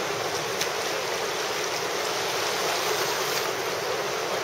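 Whitewater of a river rapid rushing steadily, a continuous hiss of churning water.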